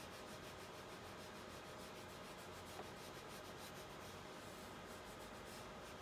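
Faint, steady rubbing of a spatula pressed across an adhesive gasket, squishing it down onto the printer's screen.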